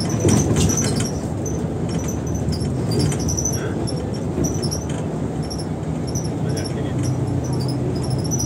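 Volvo bus on the move: a steady engine and road rumble, with quick high squeaks repeating throughout. An engine hum comes through more clearly near the end.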